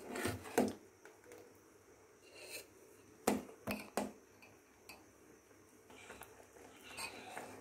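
A steel spoon clinking and scraping against a steel pot while stirring thick ground-rice and milk pudding, in a scattered handful of faint knocks, the loudest a little past the middle.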